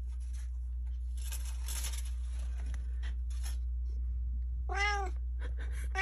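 A Siamese cat meows once, short and arching up and down in pitch, near the end, after some light rustling.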